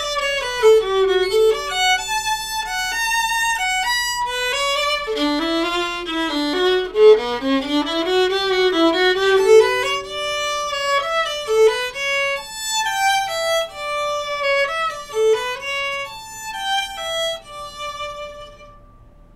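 Martin Kullick Model 300 violin, a steel-strung student violin, played solo with the bow: a melodic passage of changing notes with quick runs rising and falling in the middle. It ends by fading out on a last note near the end.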